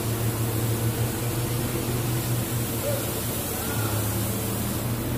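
Large forklift's engine running steadily with a constant low hum.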